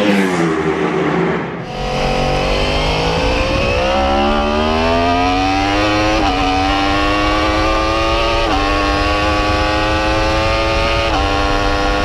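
A superbike goes past with its engine note falling away. Then comes onboard sound of a 2015 Yamaha YZF-R1's crossplane inline-four accelerating hard down the straight, its pitch climbing in each gear and dropping sharply at each of several quick upshifts.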